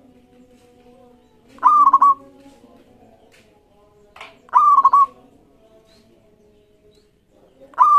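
Zebra dove (perkutut) singing: three short phrases of quick staccato coos, about three seconds apart, the last one near the end.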